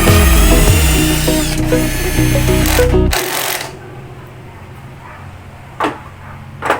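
Power drill whining over background music, its pitch dipping briefly; both stop about three seconds in, followed by a quieter stretch with two short knocks.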